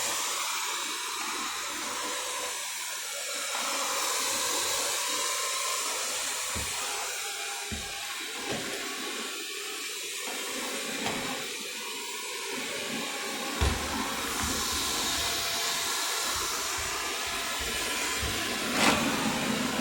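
Wyze robot vacuum running steadily, a continuous hiss of its suction fan and brushes as it cleans the floor. A couple of brief knocks break in, one about two-thirds through and one near the end.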